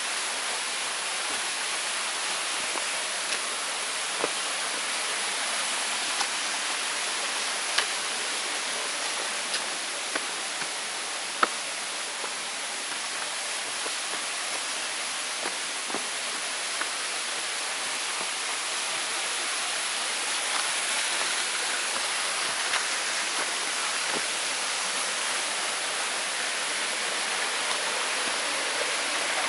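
Small jungle stream running over rocks, a steady rushing of water that grows a little louder near the end. A few sharp clicks stand out over it.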